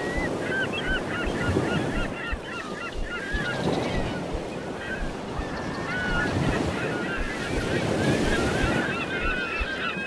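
Surf washing on the beach in the wind, with a flock of birds giving many short, quick calls over it. The calls thin out in the middle and pick up again for the last few seconds.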